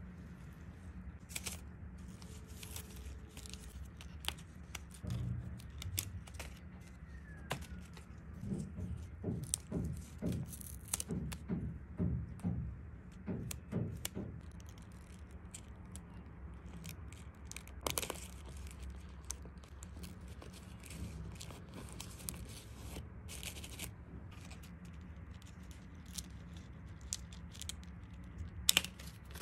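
Small handling noises over a low steady hum: scattered light clicks and rustles, with a run of soft knocks at about two a second through the middle and a sharper click near the end.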